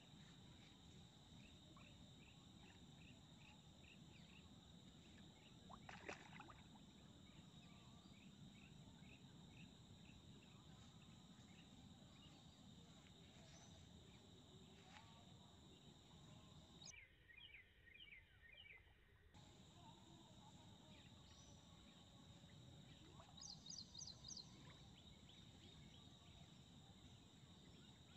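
Near silence: faint outdoor ambience of insects chirping in quick repeated trills, with a few faint bird calls.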